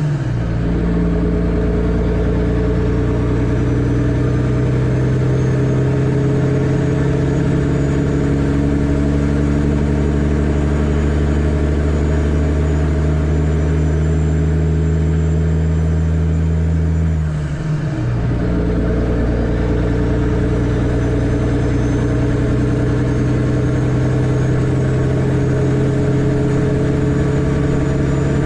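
Kenworth W900B dump truck's CAT C13 diesel engine running at a steady engine speed while driving, with a brief dip in the engine note about 17 seconds in before it settles back to a steady drone.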